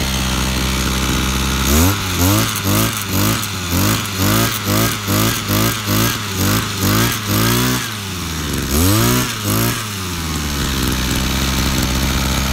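Robin 25cc two-stroke brush cutter engine idling, then revved in quick blips, about two a second, on its squeeze-trigger throttle, with one longer rev after that before it settles back to idle.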